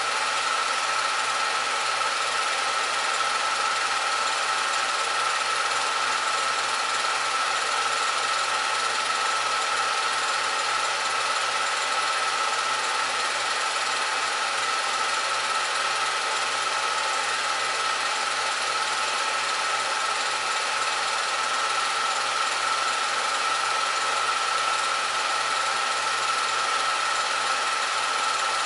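A 16mm film projector running: a steady mechanical whir and hiss with a constant high-pitched tone.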